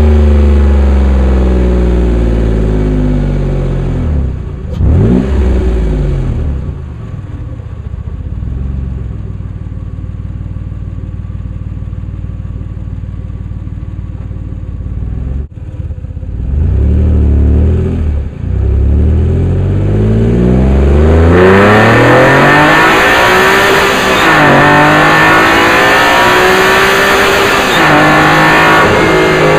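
Acura/Honda NSX 3.2-litre DOHC VTEC V6, heard from inside the engine bay under the rear glass. It winds down from high revs at the start and runs lower and quieter for several seconds. It then climbs in pitch and pulls hard and loud, the pitch dropping twice near the end at gear changes.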